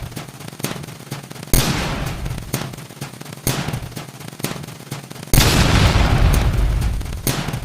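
Emergency Alert System alarm digitally sped up so far that no tone is left, only harsh noise bursts. A burst hits sharply about every two seconds and fades away, with rapid clicks crackling in between.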